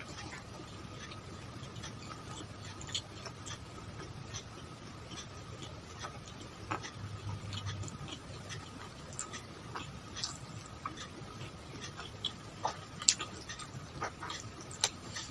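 Close-miked eating sounds: chewing and small wet mouth clicks at an irregular pace, with a sharper click about 13 seconds in, over a faint steady electrical hum.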